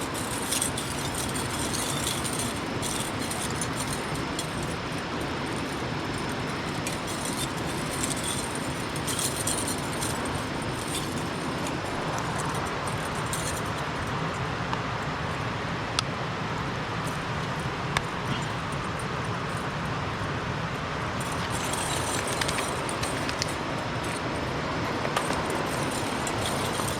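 Steady rushing noise, with a couple of faint clicks about halfway through.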